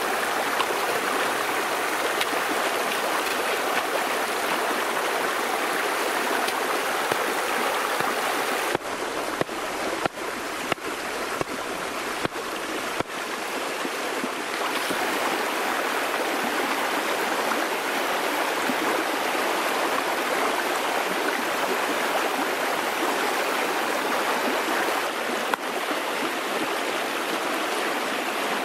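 Steady rush of a shallow stream flowing over rocks, with a few brief clicks about a third of the way through.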